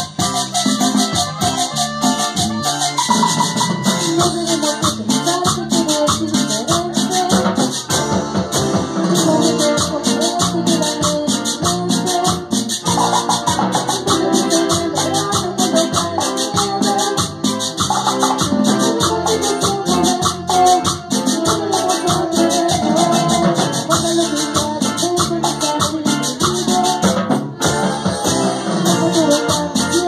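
Live band playing: a metal güira scraped in a steady, quick rhythm over electric bass and keyboard, with a man and a woman singing into microphones.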